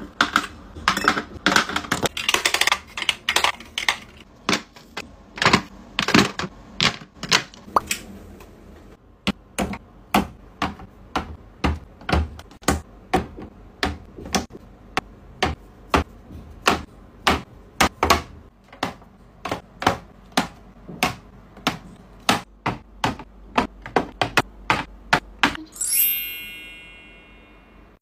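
Plastic skincare bottles and tubes being set down and tapped against clear acrylic organiser shelves: a steady run of crisp clicks and taps, about two a second. Near the end comes a bright twinkling chime that fades away.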